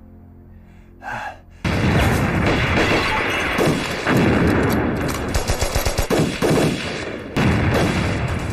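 Quiet, tense music gives way, about one and a half seconds in, to a sudden heavy outbreak of battle: rapid machine-gun and rifle fire mixed with explosions, loud and continuous.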